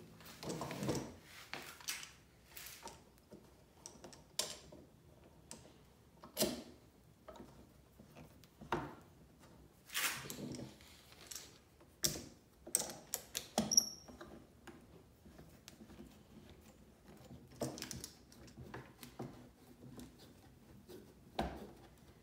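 Scattered knocks, clicks and scraping from bar clamps and parallel clamps being set and tightened across glued walnut miter joints, with one brief high squeak a little past halfway.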